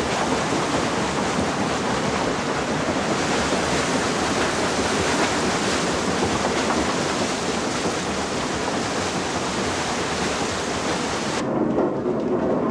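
Water splashing and cascading off a water-powered mill's waterwheel, a loud, steady rushing. A second before the end it gives way to the lower rumble of the mill's gear wheels.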